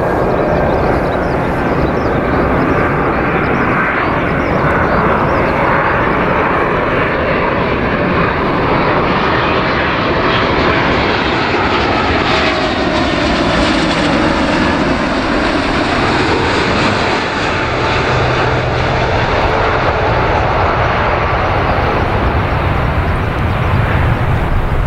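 Jet noise from an Alitalia Boeing 777's twin GE90 turbofans at approach power as the airliner flies low overhead on final approach. The noise is steady, and its tone sweeps about midway as the plane passes.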